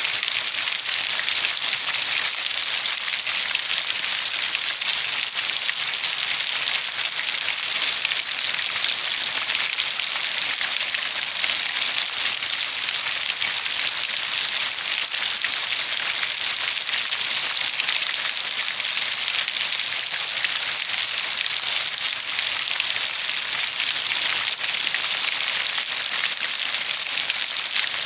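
Steady rain falling on a hard surface, a dense even hiss of many fine drops with no change in strength.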